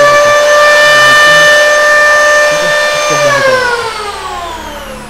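Dong Cheng 500 W electric hand planer running free with no wood under it: a steady high whine at full speed. It is switched off about three seconds in, and the whine falls in pitch as the cutter block spins down.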